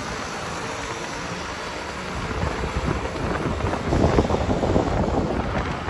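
Wind noise on the microphone over the running noise of a moving vehicle, louder and more buffeting from about two seconds in.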